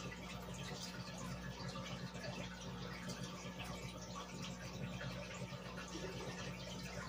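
Aquarium aeration: a stream of air bubbles rising and breaking at the water surface, a steady soft bubbling and trickling over a low hum.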